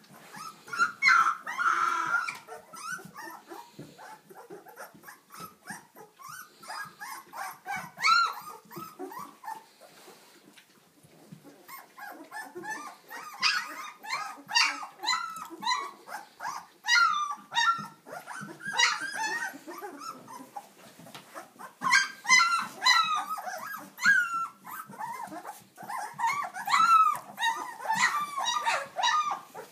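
Two-week-old puppies whimpering and squealing as they jostle to nurse. They make high, wavering little calls in bouts of rapid cries, with short lulls between.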